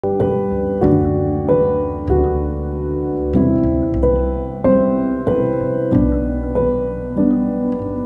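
Instrumental background music led by piano-like keyboard chords, with a new chord struck about every two thirds of a second over a sustained bass.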